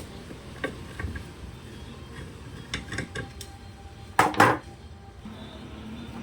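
Metal parts of an electric fan's motor being handled and knocked apart during disassembly: scattered light clinks, then two sharp knocks close together about four seconds in.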